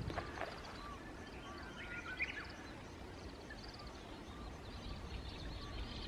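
Faint outdoor ambience with scattered short bird chirps and calls, one a quick rising chirp about two seconds in, over a low steady background.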